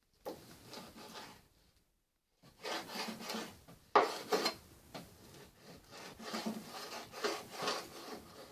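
Knife cutting raw pork leaf fat on a wooden cutting board: irregular scraping and chopping strokes, with a sharper knock about four seconds in.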